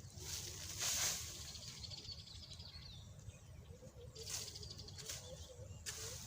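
Dry cut grass rustling in a few short swishes as it is gathered by hand, the loudest about a second in, with faint bird chirps in the background.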